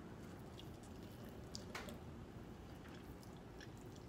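Faint wet mouth sounds of someone eating spicy instant noodles with chopsticks: scattered soft clicks and squishes of slurping and chewing, with one stronger click a little under two seconds in.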